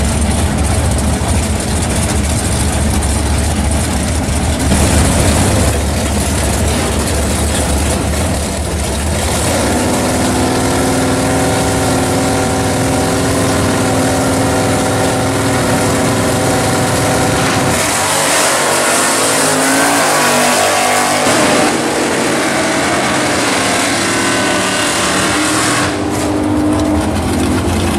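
Drag-race cars' engines, a Chevelle SS V8 and a Plymouth Barracuda, rumbling at the start line, then held at steady revs while staged. About two-thirds in they launch, revving hard and pulling away. Near the end another drag car's engine runs at the line.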